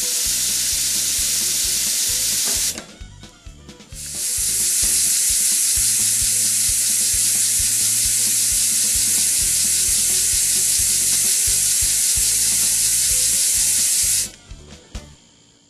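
Model twin-cylinder oscillating-valve steam engine running on compressed air: a steady loud hiss of air through the cylinders over a fast, even ticking. The hiss cuts off a little under three seconds in, comes back about a second later, and runs until it is shut off near the end.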